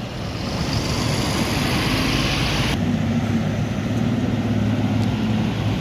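A bus passing close by: engine and road noise rise as it approaches. About halfway through, the sound gives way to a steady low engine drone.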